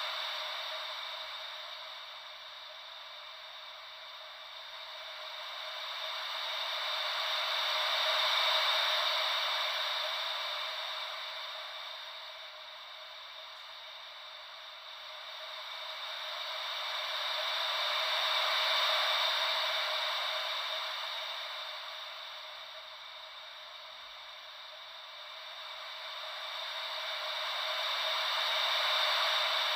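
White noise made to sound like gentle ocean waves, swelling and fading in slow, even cycles about ten seconds apart, three times here.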